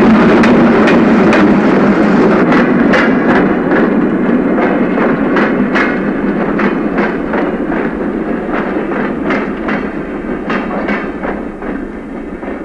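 A steady rumbling noise with regular sharp clacks about two or three times a second, slowly fading away.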